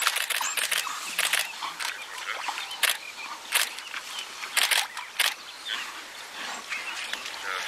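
Camera shutters clicking at irregular intervals, several in quick bursts, over outdoor background hiss and animal sounds from African wild dogs attacking a bushbuck.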